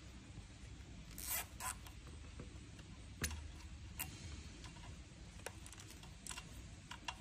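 Hands handling cables on an e-bike frame: a couple of short scraping rasps about a second in, then scattered sharp clicks, over a faint low hum.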